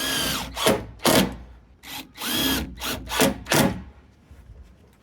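A power drill running in two short bursts, its motor whine rising and falling each time, with a few sharp knocks between the bursts.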